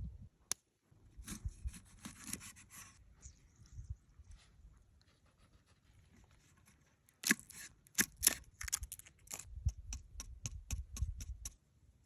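Hand-work noise: rustling and scraping, then a run of sharp knocks with dull thuds beneath them, coming about four a second near the end.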